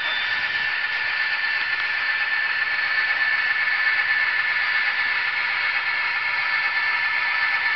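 Model diesel freight train running on layout track: a steady whirring hiss with a thin, steady whine from the locomotives' motors and wheels.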